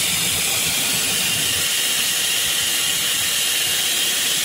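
Acctek small ATC CNC router running as its spindle feeds a tap down to thread a hole in a steel bar: a steady high hiss with a faint low rumble underneath.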